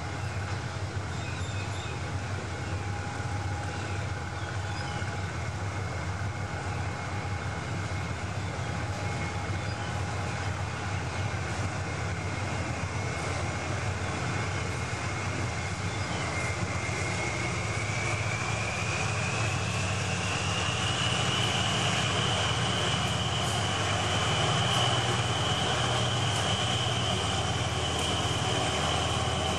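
GE CM22-7i diesel-electric locomotive (SRT 4500 series, Cummins KTA-50L engine) running as it approaches, its steady low engine drone growing gradually louder. A high whine over the drone rises in pitch about two-thirds of the way through.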